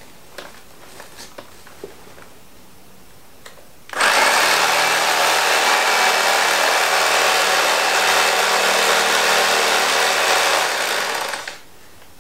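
Electric carving knife switched on about four seconds in, its motor and reciprocating blades running steadily as they cut down into foam, then switched off shortly before the end. A few faint handling clicks come before it starts.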